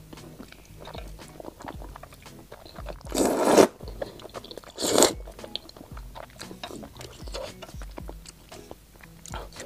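Close-miked eating of spicy stir-fried Buldak-style fire noodles: two loud slurps as noodles are sucked in, about three and five seconds in, with wet chewing and small mouth clicks between them.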